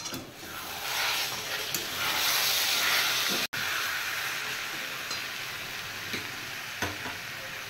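Chicken curry masala sizzling in a hot metal kadai while being stirred and scraped with a metal spatula, at the kosha stage of frying the chicken down in its spices. A steady sizzle, loudest in the first half, with a few spatula scrapes and clicks; it breaks off for an instant about halfway.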